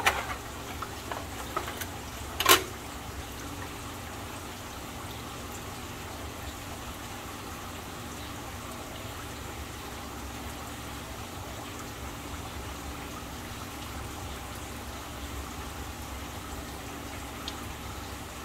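Aquarium water trickling and splashing steadily, with a few light clicks early and one sharp knock about two and a half seconds in.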